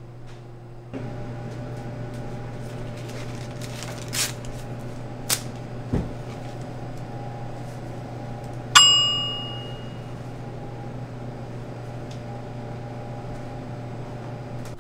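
A steady electrical hum with a few light clicks, then a single bright ding, like a bell or timer, that rings out for about a second.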